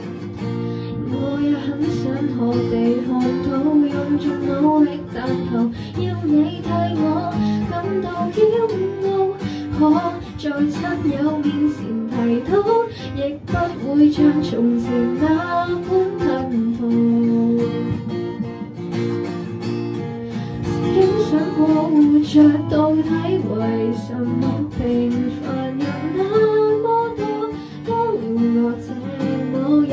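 Live acoustic pop song: steel-string acoustic guitar strummed in chords while a female voice sings the melody.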